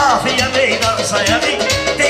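Meyxana: a man chanting rhymed verse into a microphone over an amplified backing track with a steady beat.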